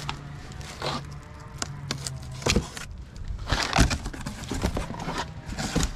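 A cardboard box being cut open with a knife and its flaps pulled back: scattered scrapes, rustles and knocks of cardboard and packing tape.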